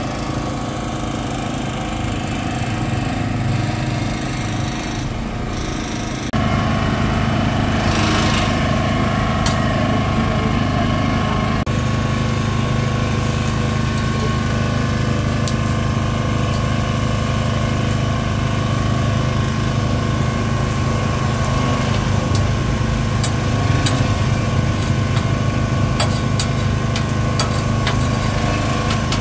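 Small portable petrol generator running steadily, a constant engine hum that gets louder about six seconds in. Occasional light clicks sound over it in the second half.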